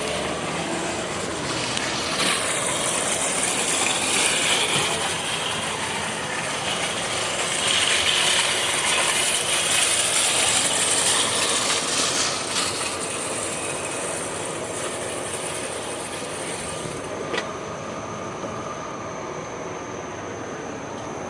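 Chevrolet 350 small-block V8 running at idle through headers and a dual four-barrel carburetor setup: a steady rushing engine sound that swells a little in the middle, with one short click near the end.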